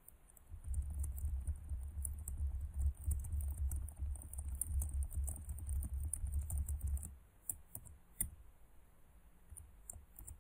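Fast typing on a computer keyboard: a dense run of keystrokes for about six seconds, then a few single key presses near the end.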